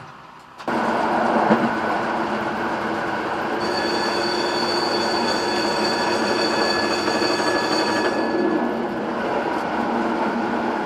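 Tram running along its track, heard from the driver's cab: steady rolling noise of wheels on rail with a constant hum, starting suddenly about half a second in. A high steady whine joins in from about four to eight seconds.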